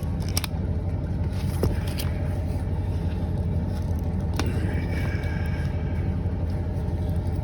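A motor or engine running steadily with a low rumble, with a few sharp clicks from handling the ratchet strap on the tire.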